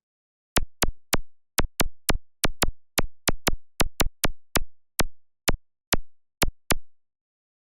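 Synthesized sound effect: a run of about twenty sharp electronic clicks, each with a short low decay. They come in an uneven rhythm that slows toward the end, stopping about seven seconds in.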